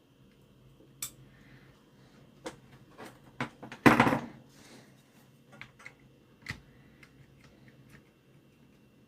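Scattered clicks and knocks of the radio alarm clock being handled, over a faint steady hum. The loudest is a brief rattling knock about four seconds in.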